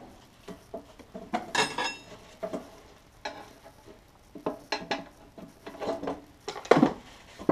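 Metal tools and parts clinking and knocking as they are handled and set down on a workbench, with one brief metallic ring about a second and a half in and a louder knock near the end.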